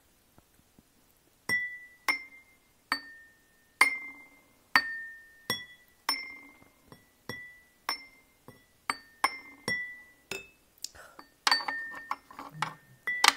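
Wooden spoon tapping small ceramic bowls, each tap ringing out as a clear bell-like tone whose pitch shifts a little from bowl to bowl, about one to two taps a second starting about a second and a half in. Near the end a quicker cluster of knocks as the spoon is set down on the tray.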